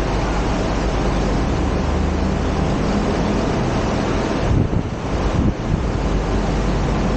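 Steady wind rumble on the microphone over a low background hum from the open-air monorail platform and the waiting train. The rumble dips and wavers briefly about four and a half seconds in.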